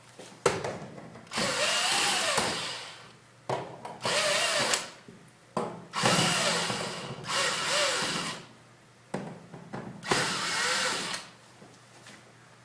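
Black & Decker VPX cordless drill/driver running in several bursts of one to two seconds, its motor winding up and then slowing in each, as it turns the screws of a wall outlet's keying disc.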